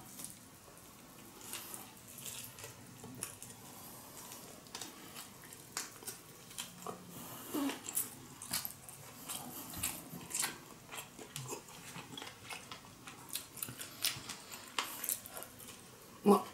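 Close-up chewing of octopus nigiri: soft, irregular crunching and wet mouth clicks. Just before the end there is a short, louder voiced sound from the eater.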